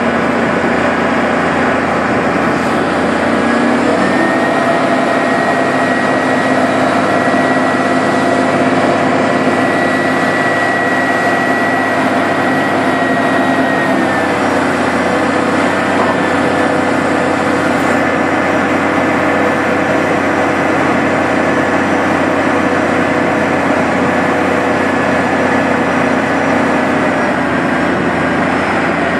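Hyster container top loader's diesel engine running steadily under test while its mast and spreader are worked. A whine rides on it, stepping up in pitch about four seconds in and shifting again around halfway.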